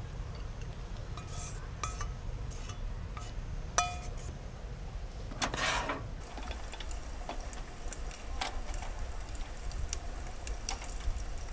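Cookware clinking and scraping as a stir-fry is scraped out of a wok into a bowl. There is a sharp ringing clink about four seconds in, and a longer scraping clatter around six seconds as the wok goes back onto the gas burner.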